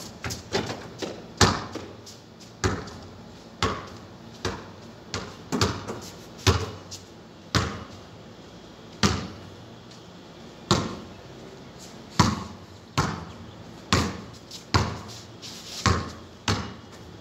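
A basketball bouncing on a concrete court, dribbled in uneven runs of sharp slaps, each followed by a short echo.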